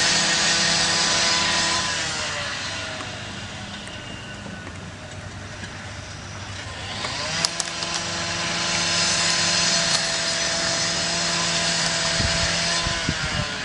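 An engine running steadily. Its speed drops about two seconds in, picks up again around seven seconds, and drops once more near the end, with a few low thumps at the close.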